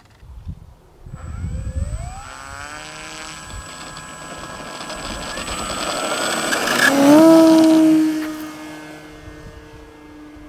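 Engine and propeller of a scale RC Yak 54 model aeroplane throttling up in rising steps for a takeoff run. Its pitch jumps and it is loudest about seven seconds in as the plane lifts off, then it fades as the plane climbs away.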